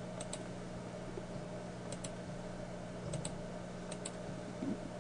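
A few scattered faint clicks of a computer mouse over a steady low hum.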